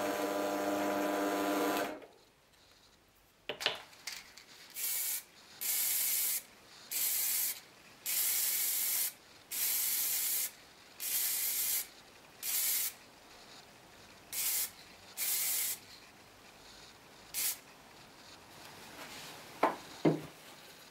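A bench drill press motor runs with a steady hum and stops about two seconds in. Then an aerosol spray can hisses in about ten short bursts, each under a second, as a finish is sprayed onto a small turned wooden knob. Two sharp wooden knocks come near the end.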